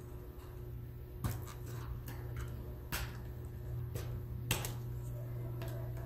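Small sharp clicks, four of them a second or so apart, as the flip-up locking levers on a laptop motherboard's ribbon-cable connectors are pried open by fingertip to release the cables.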